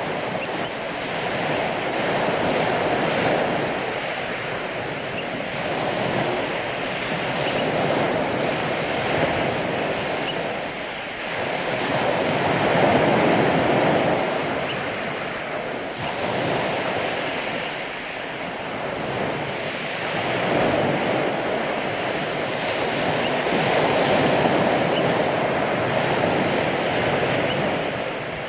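Ocean surf breaking on a beach, a steady wash of waves that swells and ebbs every few seconds.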